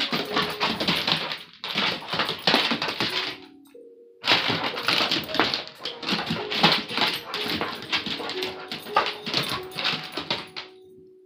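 Two dogs playing rough on a wooden floor: dense bursts of scuffling and dog noises with sharp clicks, broken by short lulls, the longest about four seconds in and another just before the end.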